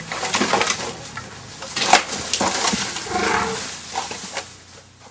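Twigs and branches snapping and leaves rustling as an African elephant pushes through dense bush. It is a series of sharp cracks, the loudest about two seconds in.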